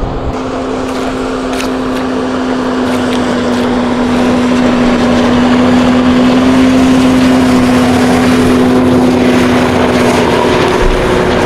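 Polaris snowmobile engine running at a steady pitch as the machine approaches and passes close by. It grows louder to a peak a little past the middle, then eases slightly.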